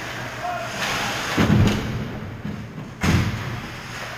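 Ice hockey play in front of the goal: skates scraping on the ice and two heavy thumps about a second and a half apart.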